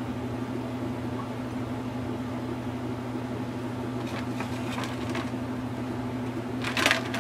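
Steady low machine hum, such as a fan or appliance running in the room, with a short rustling noise near the end.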